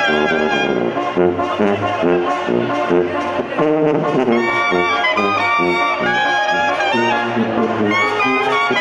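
Mexican banda playing live: clarinets carry the melody over brass and a line of repeating low bass notes in a steady dance rhythm.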